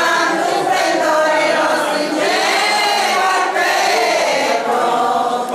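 A group of men and women singing a traditional folk song together, many voices at once.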